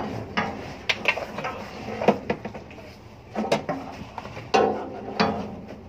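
Irregular knocks, thumps and rustles of woven garbage sacks being handled and passed down, with the loudest thumps about two, three and a half, and four and a half seconds in.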